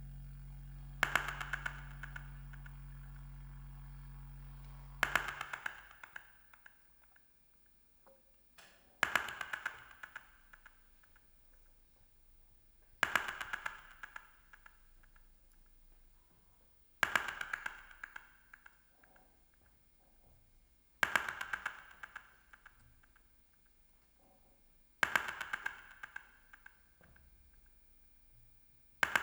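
Experimental improvised music: a low held drone that stops about five seconds in, and a short burst of rapid clicks that comes back every four seconds, each dying away briefly.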